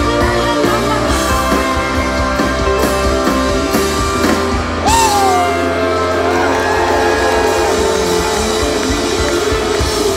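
Live rock band playing loudly: electric guitar, bass guitar and drums, with a sharp sliding note that falls in pitch about halfway through.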